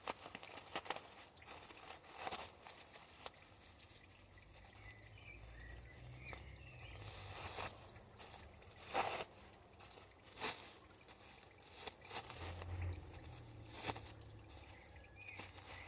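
Plastic packaging rustling and crinkling in irregular bursts as a potted plant is unwrapped by hand, with a few louder rustles in the second half.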